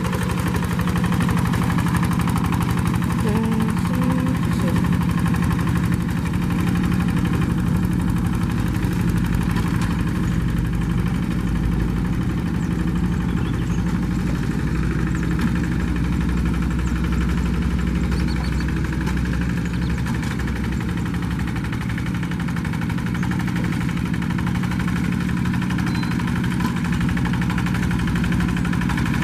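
A rice-field hand tractor's diesel engine running steadily at an even speed.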